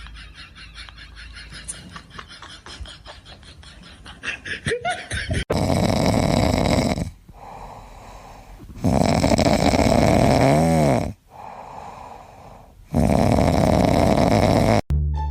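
Snoring: a softer, fluttering stretch, then from about five seconds in three long, loud, noisy breaths, each lasting a second and a half to two and a half seconds, with quieter gaps between them.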